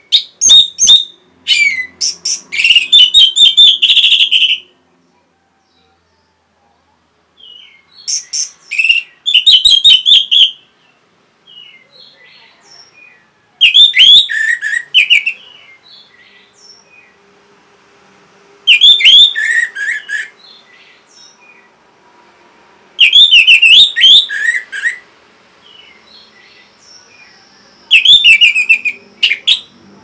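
Orange-headed thrush singing: six loud bursts of quick, varied whistles and chirps with falling notes, a few seconds apart, with softer single calls in the pauses.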